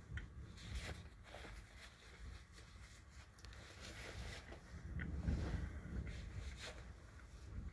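Fabric rustling as a hooded jacket is pulled off the shoulders, with scattered light knocks and a heavier low bump about five seconds in.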